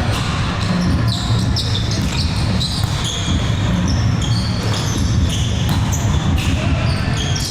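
Indoor volleyball rally: repeated sharp hits of the ball, with short high sneaker squeaks on the court floor, echoing in a large gym hall over a steady low background noise.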